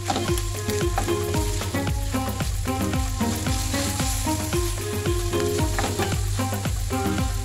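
Sautéed carrots, onions and tomato paste sizzling in a stainless steel frying pan as a wooden spatula stirs and scrapes them, with soy sauce just added. Light background music with a steady beat plays over it.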